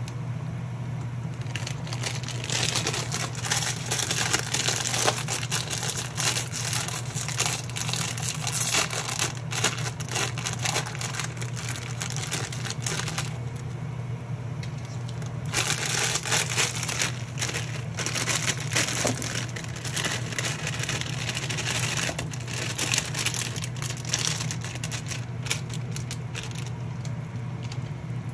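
Dense crackling and crunching in two long stretches, broken by a pause of about two seconds near the middle, over a steady low hum.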